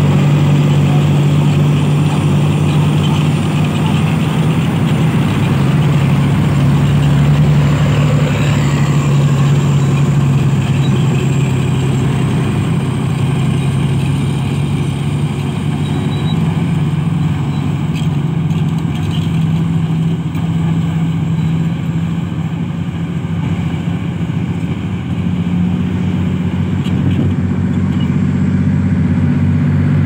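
Heavy diesel engine of a LiuGong B320 crawler bulldozer running loud and steady under load, its pitch shifting slightly about halfway through and again near the end.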